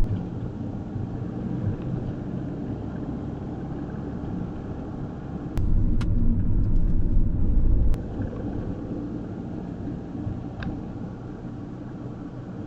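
Mercedes Vito van on the move, a steady low road-and-engine rumble. A louder stretch of rumble begins abruptly about halfway through and cuts off about two seconds later.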